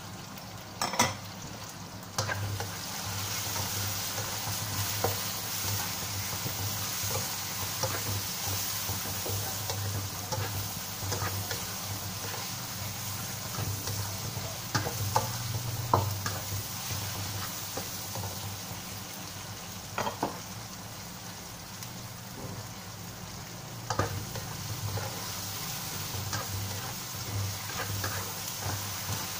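Tomatoes, onion and whole spices sizzling as they fry in oil in a non-stick wok, stirred with a spatula that scrapes and knocks against the pan now and then.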